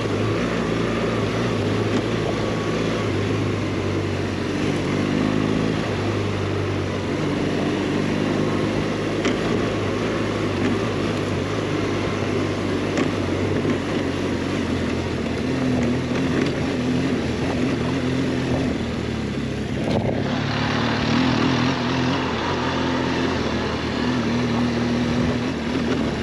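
BMW GS 1200's boxer-twin engine running as the bike is ridden off-road, its pitch rising and falling with the throttle, over a steady rushing noise.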